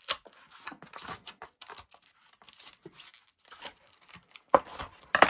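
Scattered small clicks, taps and rustles of hands handling model parts and wiring on a workbench, with two sharper knocks near the end.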